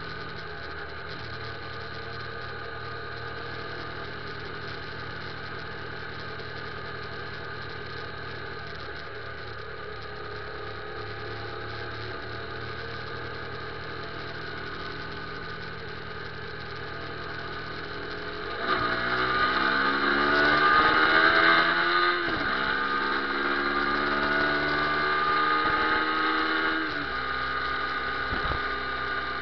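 Motorcycle engine running low and steady at slow speed, then, about two-thirds of the way in, revving up hard and rising in pitch through two gear changes as the bike accelerates away.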